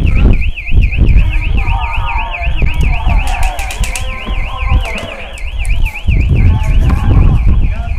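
Electronic alarm wailing in a fast, steady warble, several wavers a second, over heavy wind buffeting on an unshielded microphone.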